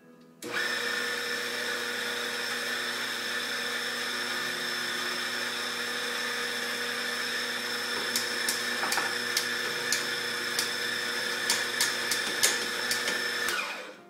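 Café coffee equipment running, a loud steady machine noise with several held tones that starts suddenly and cuts off about a second before the end. Sharp ticks come through it in the second half.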